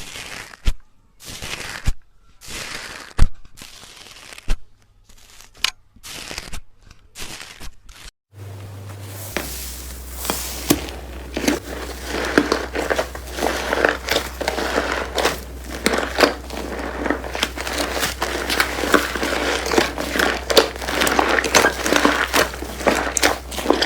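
Slime being squeezed and poked by hand, making crackly, squelching sounds. First come separate presses with short pauses between them; from about eight seconds in there is continuous squishing thick with tiny pops and crackles over a low hum.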